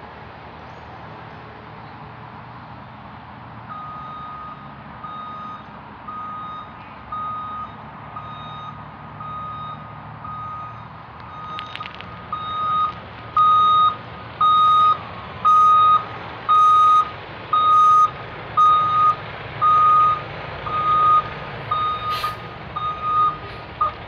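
Heavy truck's reversing alarm beeping a single tone a little under once a second, growing louder to a peak midway and easing off near the end, over a steady low rumble.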